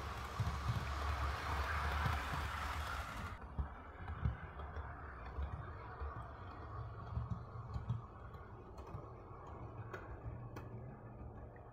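Hornby OO gauge Class 43 HST model power car running on DC around the track: a low, steady motor hum with the wheels rolling on the rails, fading as it runs away, and a few sharp clicks near the end.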